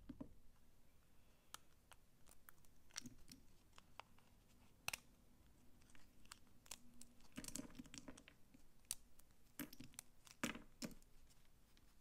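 Old dry soap snapping and crunching as it is broken apart by hand, with flakes dropping onto a pile of shavings. Single sharp cracks come a second or two apart, with denser runs of crunching about two thirds of the way in and near the end.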